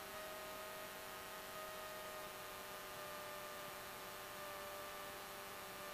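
Faint, steady cockpit hum and hiss in a Cessna 172 in flight, with a few steady tones under it, between radio calls.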